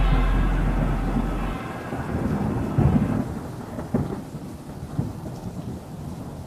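Thunderstorm: a long low rumble of thunder dies away over the first second or two, leaving rain. Then come sharp thunder claps about three, four and five seconds in, the first the loudest.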